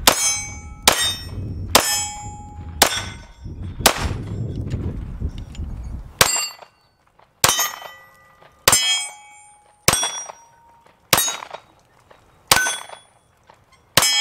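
Lone Wolf Arms LTD19 9mm pistol fired about a dozen times, roughly one shot a second, each shot followed by the ringing clang of a steel target being hit. A low rumble lies under the first half and stops abruptly about six seconds in.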